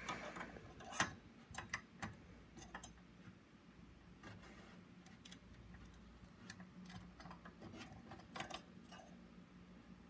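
Faint, irregular small clicks and ticks of a screwdriver turning a Phillips screw out of a desktop PC's CPU cooler fan mount, the sharpest about a second in.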